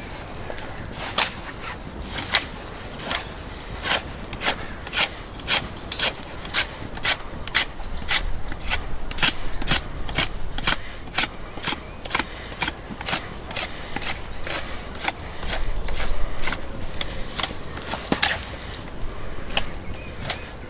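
A long run of short, sharp wooden strokes or scrapes, about two a second, pausing now and then. Small birds chirp high above them.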